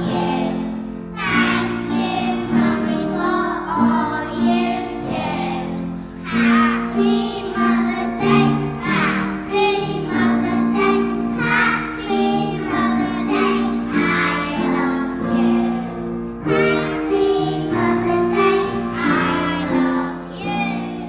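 A group of young children singing a song together over musical accompaniment.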